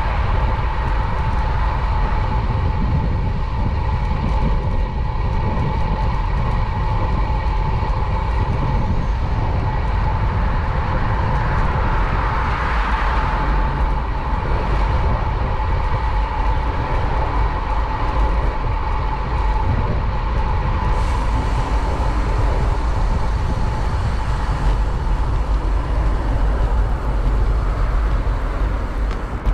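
City street traffic noise heard from a moving bicycle: a steady low rumble with a constant hum running through it, and no single event standing out.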